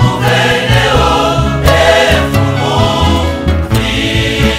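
A choir singing, with several voices over steady low notes underneath.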